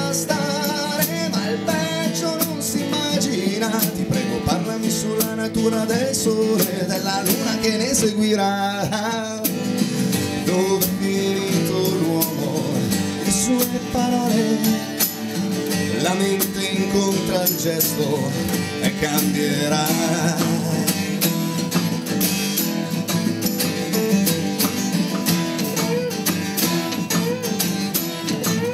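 A live acoustic band plays: a man sings over strummed acoustic guitars, with an acoustic bass guitar and drums.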